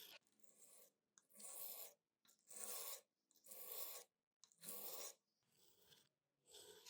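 Slow, even hand strokes of metal being rubbed against an abrasive, about one stroke a second with short pauses between, some strokes fainter than others.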